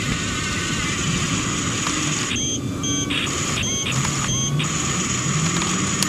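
Double Eagle E579 RC bulldozer's electric drive motors and gearbox whirring as it drives forward, the motor pitch climbing in the second half. A repeating pattern of high electronic tones sounds several times over it from about two seconds in.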